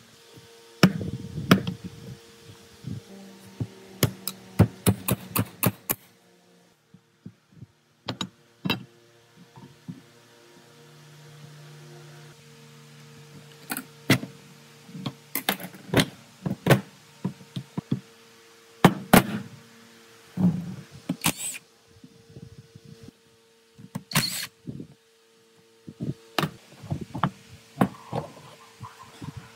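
Irregular sharp knocks and clinks of hand tools on metal machine parts, some in quick runs, over a steady low hum.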